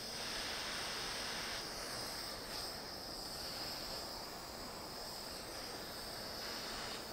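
Handheld butane torch flame hissing steadily while it heats an aluminium bar to anneal it for bending.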